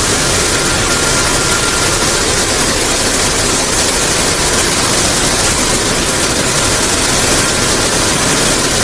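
Rotary filling machine on a dairy bottling line running, filling plastic jugs as they travel around its carousel: a loud, steady machine noise with a faint high whine through the first half.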